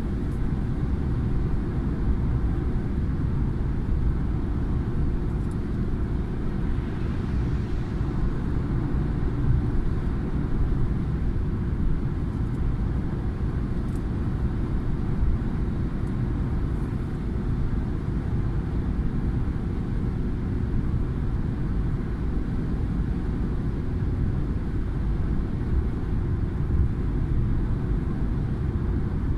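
Steady low rumble of a car's tyre and engine noise at motorway speed, heard from inside the cabin.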